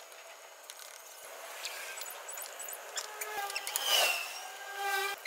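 Metal spoon scraping and clicking against a small ceramic bowl a few times, with faint high-pitched calls from a baby monkey.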